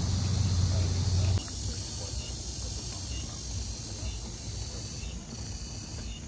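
Steady high-pitched insect chorus outdoors. A loud low rumble under it cuts off suddenly about a second and a half in.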